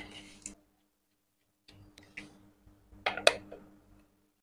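A few small clicks and taps from a screwdriver and the juicer's plastic motor housing being handled, with a louder cluster of clicks about three seconds in.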